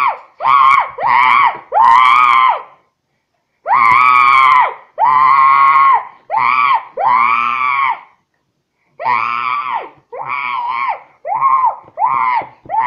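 A child's voice making a long run of loud, high-pitched monkey screeches, each call rising and falling in pitch, in three bursts separated by short pauses.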